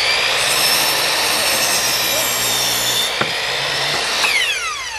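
Delta 10-inch compound miter saw running at full speed and cutting through a wooden 2x4. About four seconds in, the trigger is let go and the motor whine falls as the blade winds down.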